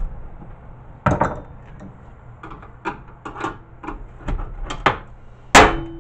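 A screwdriver prying at the case of a VHS player: a run of small clicks and scrapes, with a sharp knock about a second in and a louder one near the end.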